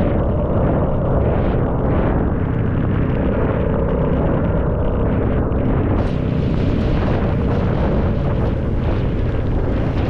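Royal Enfield Classic 350's single-cylinder engine running on the move, buried under heavy wind buffeting on the microphone. A brighter hiss comes in about six seconds in.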